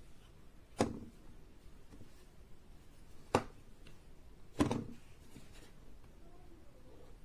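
Three sharp clicks against faint room hiss: one about a second in, one about halfway, and a third a second later with a short rattle after it.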